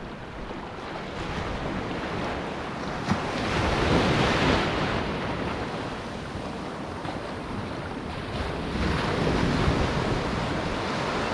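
Surf washing up on the beach, with wind buffeting the microphone; the noise swells twice, about four seconds in and again near the end.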